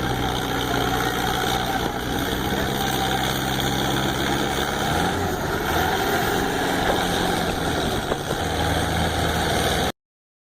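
Engine running steadily at idle, a low hum that shifts slightly in pitch about halfway through, then cuts off suddenly near the end.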